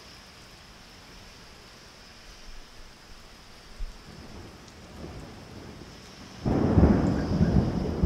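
Steady rain falling, with faint low rumbles of distant thunder. About six and a half seconds in, a sudden loud thunderclap breaks and rolls on as a heavy rumble.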